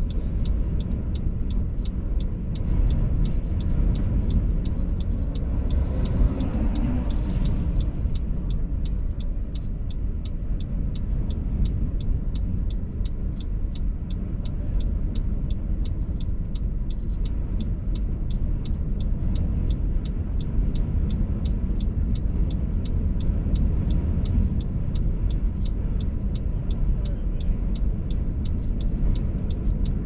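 Strong gusty wind buffeting a parked car, heard from inside the cabin as a steady low rumble, with a light, even ticking about twice a second. A louder swell of noise comes about seven seconds in.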